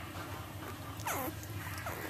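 Newborn puppies crying: a high squeal that slides steeply down in pitch about a second in, then a shorter falling squeak near the end.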